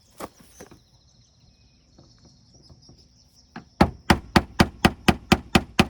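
Rapid, regular knocking, about four sharp strikes a second, starting a little under four seconds in after a few faint clicks.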